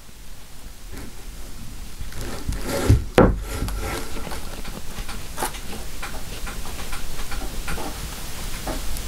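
Rubbing and handling noise as a resin-covered tray is tilted and shifted by hand, with two sharp knocks about three seconds in and scattered small clicks.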